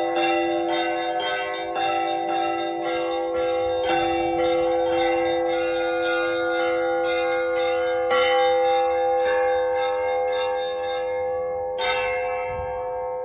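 Russian Orthodox church bells ringing a peal: small bells struck rapidly, about three strikes a second, over the sustained hum of larger bells. The rapid strikes stop near the end, one last strike follows, and the bells ring on as they fade.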